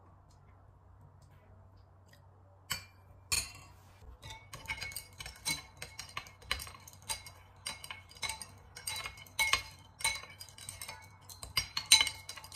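Metal spoon stirring a liquid sauce in a small ceramic bowl, clinking against the bowl's sides. After a quiet start come two single clinks, then a quick, uneven run of about three clinks a second.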